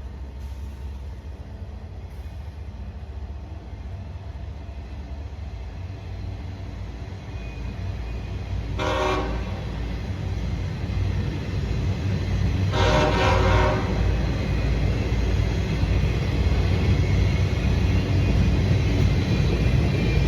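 CSX locomotive horn sounding a short blast about nine seconds in and a longer blast around thirteen seconds, over the rumble of the train, which grows steadily louder as it approaches.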